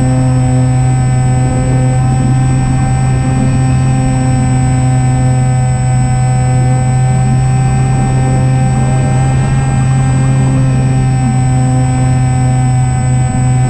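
Electric motor and pusher propeller of an E-flite Opterra flying-wing RC plane in flight, heard from the plane's own onboard camera. It is a loud, steady drone at one constant pitch, under rough wind rush.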